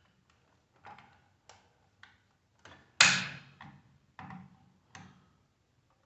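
Metal parts and hand tools clanking and knocking as a microwave is taken apart: about eight separate knocks, the loudest about three seconds in, with a brief metallic ring.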